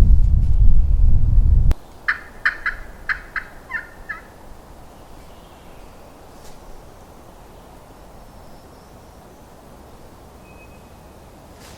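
Wind buffeting the microphone with a heavy rumble that cuts off abruptly, then a wild turkey gobbler gobbles once: a quick rattling run of notes about two seconds in, heard through light wind.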